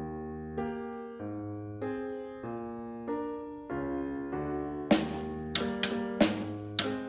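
Instrumental music: sustained keyboard chords changing about every half second, with sharp drum hits coming in about five seconds in.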